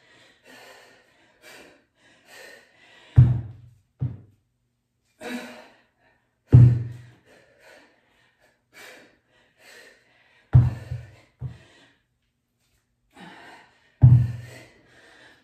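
Heavy kettlebell set down on a rubber-matted floor with a dull thud, four times about three and a half seconds apart, each between power-clean reps from the floor. Short, sharp breaths between the thuds.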